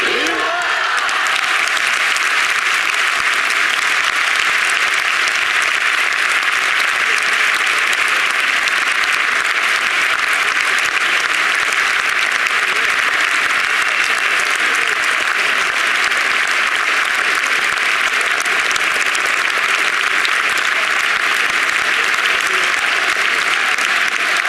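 A large outdoor crowd applauding steadily, the clapping taking over from the crowd's singing in the first moment.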